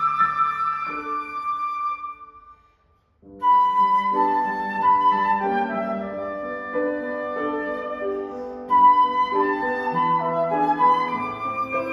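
Live instrumental music, a wind-instrument melody over accompaniment: a long held note, a short break of about a second, then a quicker melody of held notes.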